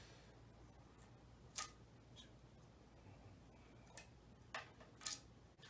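Thin plastic curve masking tape being pulled and pressed onto a painted motorcycle fuel tank, heard over near-silent room tone. It makes four brief crisp ticks: one about a second and a half in, then three close together near the end.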